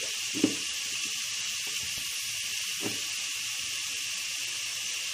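Chopped onions and ginger-garlic paste sizzling in hot oil in an aluminium pot: a steady frying hiss with two brief pops, one about half a second in and one near the three-second mark.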